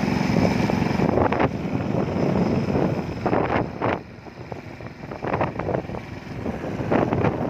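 A vehicle's engine running on the move, with wind buffeting the microphone. It gets quieter about four seconds in and picks up again near the end.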